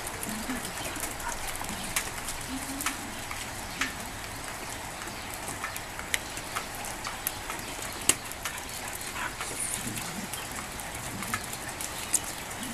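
Steady hiss of light rain, with irregular sharp ticks of drops hitting something close by.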